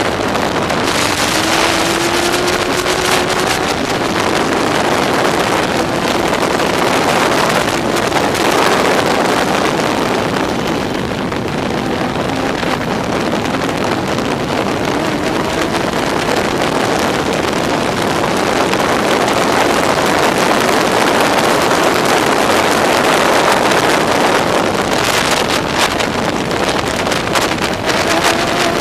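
Onboard sound of a Locost race car's Yamaha R1 inline-four motorcycle engine running at racing speed, largely buried under wind rushing over the microphone. A rising engine note comes through about a second in and again near the end.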